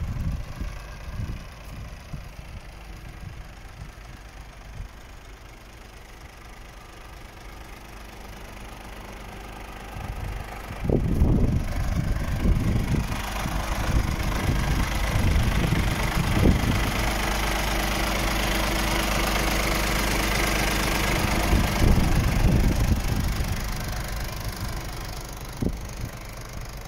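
Scania R450 truck's diesel engine idling steadily. It is faint at first under wind buffeting on the microphone, then much louder from about eleven seconds in, with a steady hum and a higher rushing hiss.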